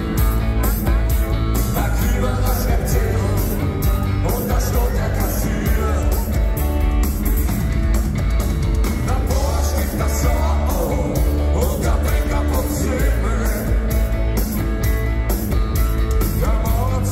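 A rock band playing live, with a steady drum beat, heavy bass and singing over it.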